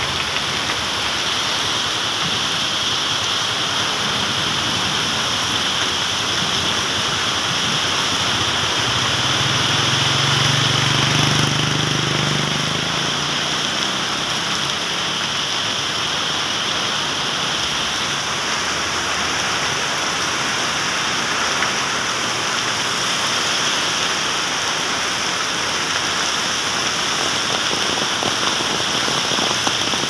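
Heavy rain pouring onto a wet road: a dense, steady hiss, with traffic driving through the water. A vehicle's low rumble swells and fades around ten seconds in.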